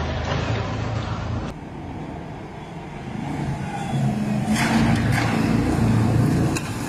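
Motor vehicles running and passing on a city street, the engine sound growing louder about halfway through, with a few sharp clicks over it.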